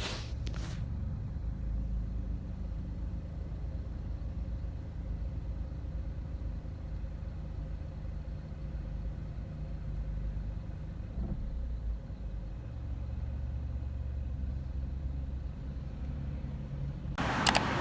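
Steady low rumble of a car on the move, road and engine noise with no clear changes. Music starts just before the end.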